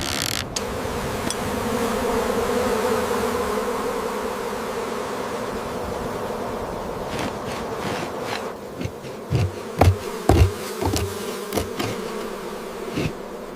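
A swarm of bees buzzing steadily, with several dull knocks in the second half, the loudest two close together about ten seconds in.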